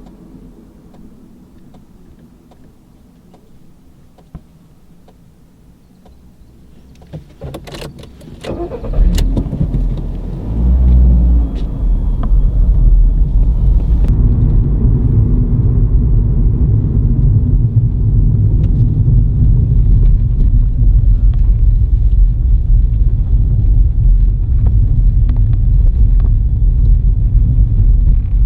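Car engine, heard quietly at first, then a few clicks and knocks about seven to nine seconds in. The car then moves off, and a loud, steady low rumble of engine and road noise carries on for the rest.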